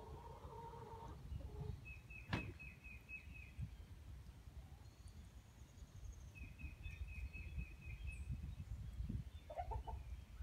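Outdoor woodland ambience with a low, gusty rumble on the microphone. A small songbird gives a rapid high trill of about ten evenly repeated notes twice, about two seconds in and again past the middle, while short lower-pitched bird calls come at the start and near the end, with one sharp click about two seconds in.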